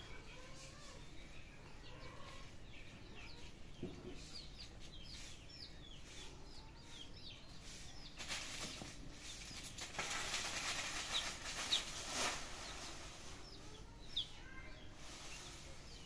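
Dry leaves rustling as kittens scamper and pounce in them, loudest from about halfway in for several seconds, over small birds chirping repeatedly.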